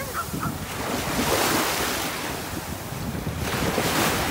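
Small waves washing up onto a sandy beach and drawing back, the hiss swelling and fading twice, with wind buffeting the microphone.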